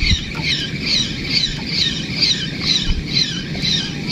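Fishing reel being cranked to bring in a hooked fish, giving a rhythmic squeak about two to three times a second with each turn of the handle.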